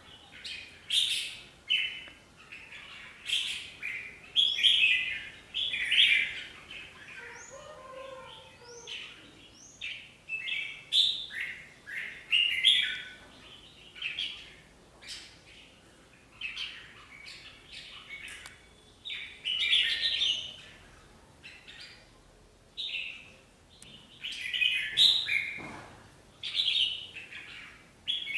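Red-whiskered bulbuls calling in short, sharp chirps and whistled phrases, one after another every second or two. It is territorial calling between a caged decoy bulbul and wild bulbuls.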